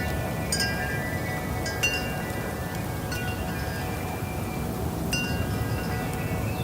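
Wind chimes ringing as the breeze moves them: scattered clusters of metallic strikes, each leaving clear tones that ring on and overlap, over a steady low rushing of wind.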